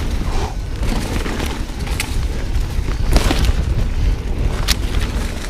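Wind buffeting the microphone while a 2020 Ibis Ripley mountain bike runs fast over a dirt trail, with a few sharp knocks from the bike over the ground.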